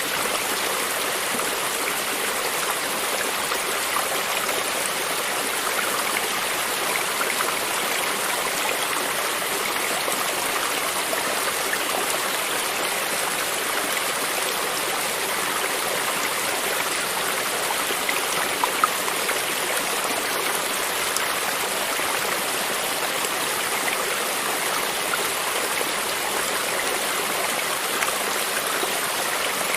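Running water of a stream, a steady babbling rush with small trickles and gurgles.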